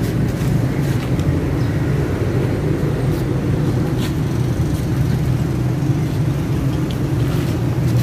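A steady low mechanical hum throughout, with a few faint light clicks of metal parts being handled as the timing chain is fitted onto the engine's sprockets.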